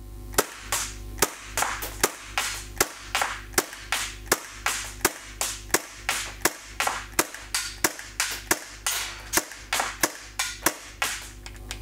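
Marushin-made Cybergun FN Five-seveN CO2 blowback airsoft pistol fired in a steady string, about three sharp cracks a second, the magazine being emptied.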